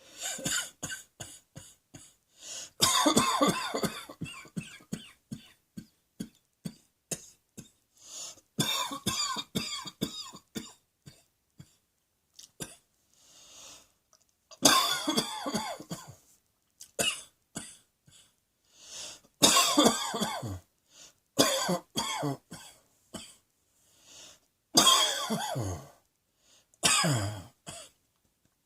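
A person coughing over and over: loud fits of coughing every few seconds, with smaller single coughs in between.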